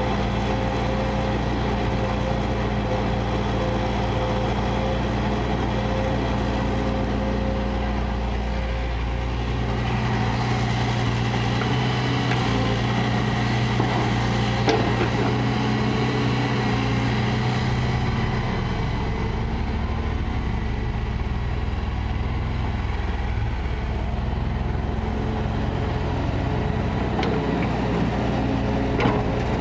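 Kobelco excavator's diesel engine running steadily as it digs. Its note changes about ten seconds in and again around eighteen seconds, with a couple of short knocks.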